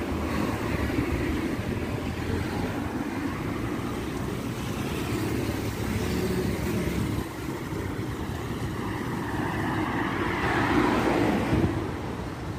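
Street traffic: cars and motorcycles passing along the road, a steady noise that swells louder about ten seconds in as a vehicle goes by.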